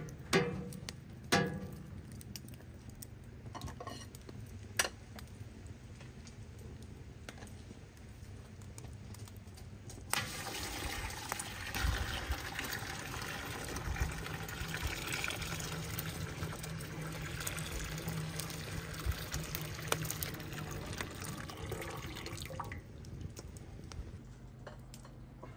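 A few light knocks, then from about ten seconds in, water running steadily into a container for about twelve seconds before stopping.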